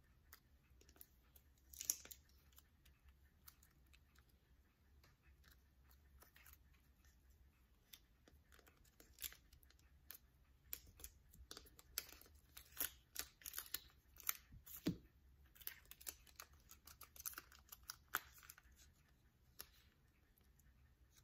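Cut-out paper puzzle pieces being slid and tapped into place on a small whiteboard by hand: faint, scattered light clicks and rustles, busier in the second half.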